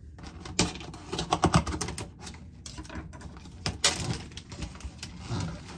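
Thin plastic packaging crinkling and crackling as a clear meat tray's film is peeled off and the tray handled: a run of irregular sharp crackles and taps, loudest about one and a half seconds in and again near four seconds.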